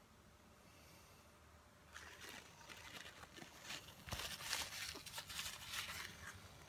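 Paper napkins crinkling and crunching right against the phone's microphone, starting about two seconds in as a dense run of crackles and rustles that is loudest in the middle.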